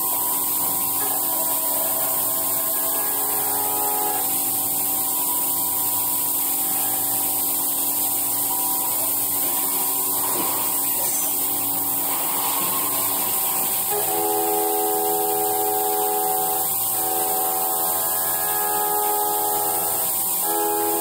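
Puma SMX 3100ST mill-turn centre machining a part under flood coolant: a steady whine of several tones over a hiss of coolant spray. The set of tones shifts about two-thirds of the way through.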